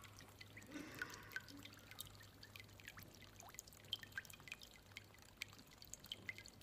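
Faint scattered water drips and a light trickle, the sound of hands being washed in wudu ablution, over a low steady hum.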